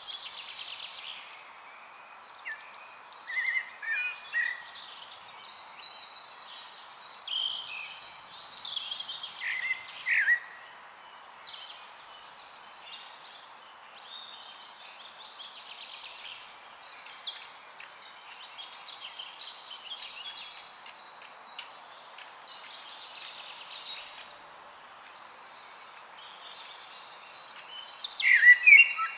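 Several songbirds singing and calling in short chirps and warbles over a steady background hiss, with a louder burst of calls near the end.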